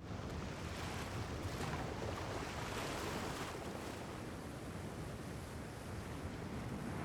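Steady rushing ambient noise, like wind or surf, that starts suddenly and swells slightly now and then.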